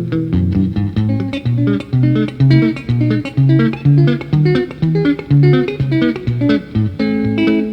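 Background music: plucked guitar picking a steady run of notes over a moving bass line.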